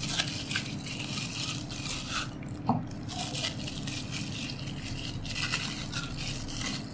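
Plastic cling wrap crinkling in irregular bursts as it is peeled off a frozen block of butter, over a steady low hum.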